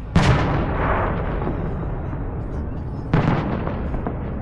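Two firework bursts about three seconds apart, each a sudden bang that trails off over a second or so; the first is the louder and longer.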